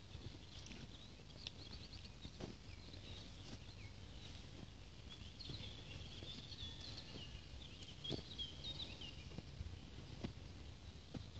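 Faint birdsong: quick, repeated chirps and trills, busiest in the middle, with a few soft knocks of footsteps on dry field soil.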